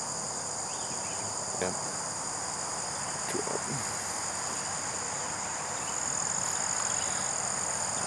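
Steady insect chorus, a shrill buzzing held at several high pitches at once, over a low, even rush of traffic from a nearby highway.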